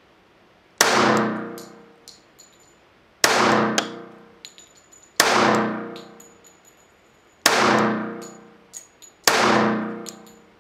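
Springfield Armory Garrison 1911 pistol firing five slow, aimed shots of 220-grain .45 ACP, about two seconds apart, each with a long echoing decay in an indoor range. Small metallic clinks of ejected brass casings follow each shot.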